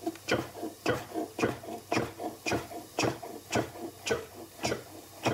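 Chef's knife chopping a block of paneer into cubes on a wooden cutting board, the blade knocking the board in steady strokes about twice a second, about ten chops in all.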